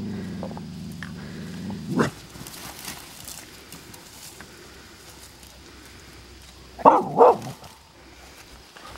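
A dog barking: a low drawn-out call for the first two seconds that ends in a sharp bark, then two quick barks close together about seven seconds in.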